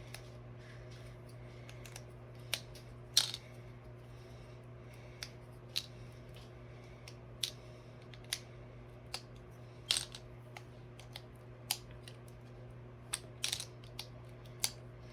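Small plastic building bricks clicking as they are handled, pried apart and pressed into place: scattered sharp clicks at irregular intervals, the loudest about three seconds in and again about ten seconds in.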